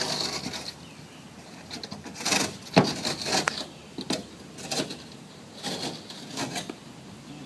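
Sheetrock being cut and worked by hand with a razor knife: a scraping stroke at the start, then a string of short, sharp scrapes and knocks.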